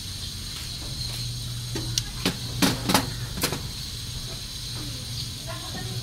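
About five sharp clicks and snips in quick succession in the middle, from pliers cutting and working a wire in the wiring, over a steady low hum.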